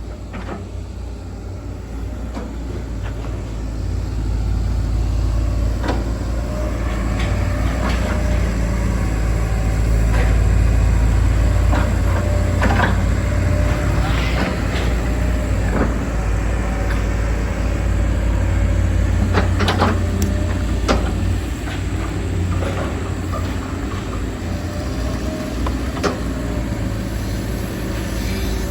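Diesel engine of a hydraulic excavator running steadily and working under load, growing louder about four seconds in. Repeated short clanks and knocks sound over it.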